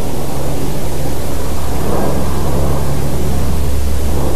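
Aircraft flying over: a loud, steady low rumble with a broad haze of noise, swelling slightly about two seconds in.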